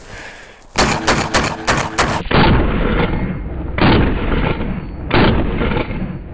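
12-gauge shotgun fired five times in rapid succession, about a quarter second between shots, with buckshot. After that comes a duller, rumbling stretch with two heavier booms about a second and a half apart.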